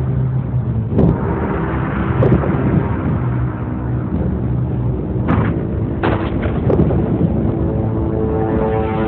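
Dramatic promo soundtrack: a steady deep rumble punctuated by several sharp booming hits, with held musical tones building near the end.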